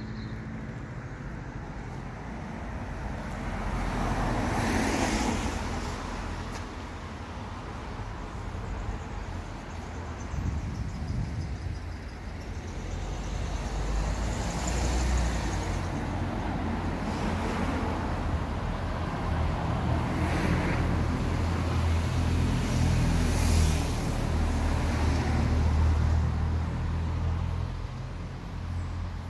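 Road traffic on a village street: several cars pass one after another, their tyre and engine noise swelling and fading over a steady low rumble.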